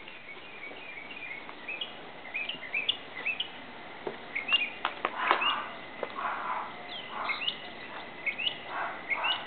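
Small birds chirping over and over with short rising calls. About halfway through come a few sharp clicks and knocks, then footsteps scuffing on dry ground at a walking pace.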